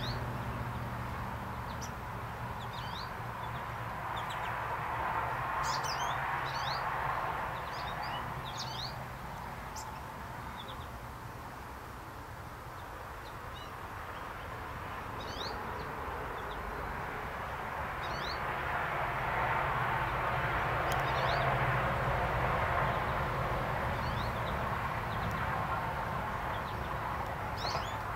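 Wild songbirds chirping in short, high, scattered calls over a steady rushing background that swells and fades, with a low steady hum underneath.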